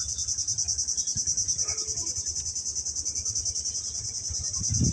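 Steady insect chorus, a high chirring that pulses about six times a second, with a few dull low thumps near the end.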